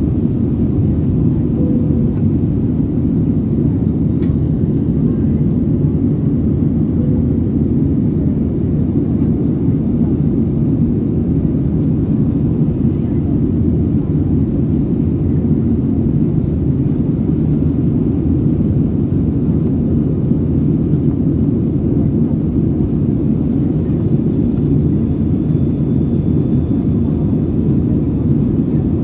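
Airliner cabin noise in flight: a loud, steady, unchanging low rumble.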